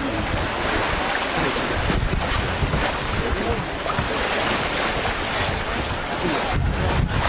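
Wind buffeting the microphone over the steady rush and splash of water around a sailboat's hull as it sails fast under spinnaker.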